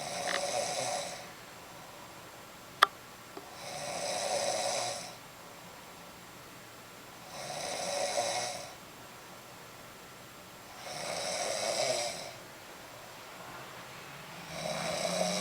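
A sleeping woman snoring: five snores about three and a half seconds apart, each lasting about a second. A single sharp click comes a little under three seconds in.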